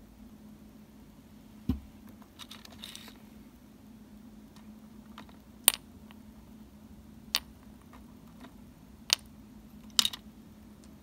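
Toy miniature potatoes set down one at a time from tiny plastic tongs into a miniature bowl, giving a few sharp, light clicks a second or two apart, the last one doubled. A soft knock and a brief rustle come first.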